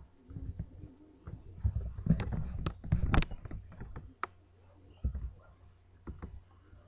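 Irregular clicks and taps of a computer keyboard and mouse, busiest around two to three seconds in, over a low steady hum.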